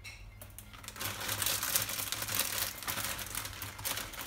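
Plastic bag of dried harusame noodles crinkling as it is handled, a dense run of crackling rustles starting about a second in.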